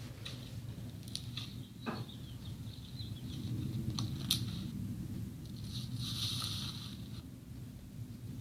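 Slime being squished and pressed, with small crackles and clicks and a short hissy squelch near the end, over a low steady hum.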